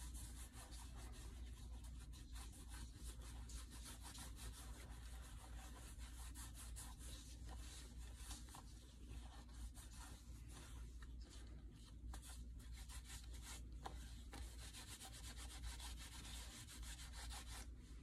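Old cotton shirt rubbing Tan-Kote finish into a leather knife sheath: faint, steady cloth-on-leather rubbing made of many small quick strokes as the finish is worked into the leather.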